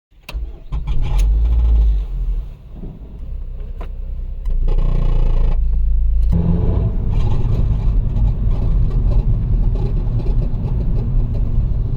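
2009 Mazda 5's engine running and being given gas, getting louder about six seconds in. The car has a faulty engine mount, the cause of the squeaks the owner complained of.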